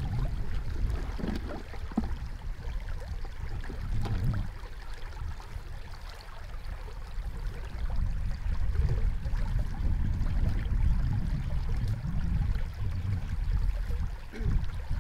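Outdoor ambience beside a fast-flowing muddy stream: the water rushing steadily, under a low, uneven rumble of wind on the microphone.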